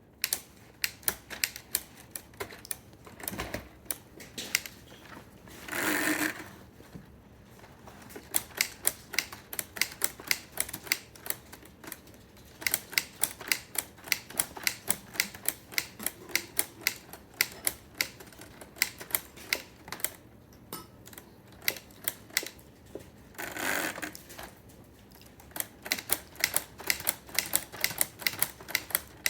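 Typewriter keys being struck in quick runs of sharp clacks, several a second, with short pauses between runs. Two longer sliding noises, each under a second, come about six seconds in and again near twenty-four seconds.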